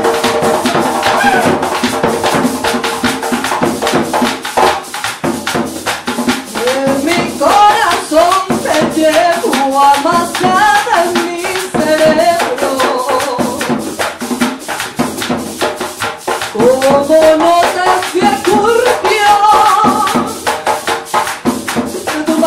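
Live Colombian folk music: hand drums and shakers keep a fast, even rhythm under a small guitar-like string instrument, with a flute holding notes at the start and a woman singing from about six seconds in.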